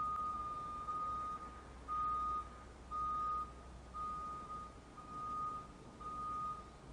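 School bus reversing alarm beeping, a single high tone. At first the beeps run together almost without gaps, then they come as separate half-second beeps about once a second, stopping near the end.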